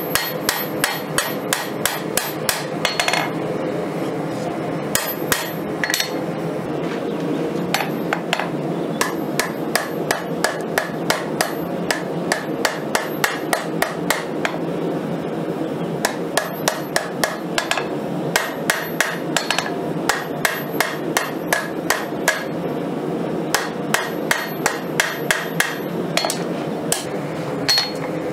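Hand hammer forging a red-hot 5160 leaf-spring steel Bowie blade on a steel anvil: a fast run of blows, about three a second, each with a bright ringing note from the anvil, broken by a few short pauses. A steady low rush sits underneath.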